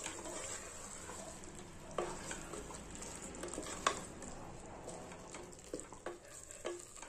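A wooden spatula stirs a thick mushroom-and-curd masala in an aluminium pressure cooker while it sizzles faintly over the flame. The spatula knocks against the pot a few times, loudest about four seconds in.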